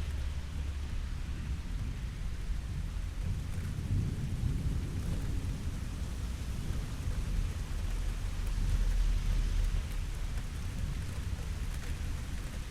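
Steady rain with low rumbles of thunder, one swelling about four seconds in and a louder one around nine seconds.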